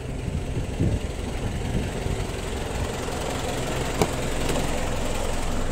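Flatbed tow truck's engine idling with a steady low rumble that grows louder toward the end, with a sharp click about four seconds in as the cab door handle is pulled.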